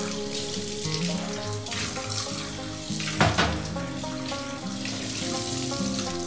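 Kitchen tap running into a stainless-steel sink while a small clay cup is rinsed under the stream; the water is briefly louder about three seconds in.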